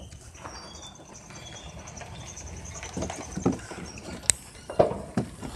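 Footsteps and knocks of a handheld camera being carried while walking, a scatter of short knocks in the second half over a faint low rumble.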